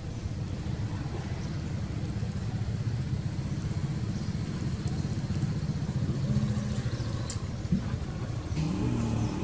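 Motorbike engine running as it rides past, a low, steady sound that grows a little louder through the middle.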